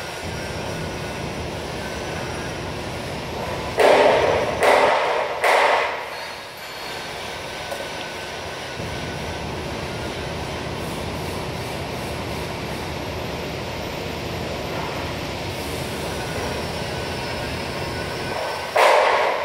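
Metal-cutting band saw running with a steady hum. Three loud, harsh clatters come about four to six seconds in, and another near the end.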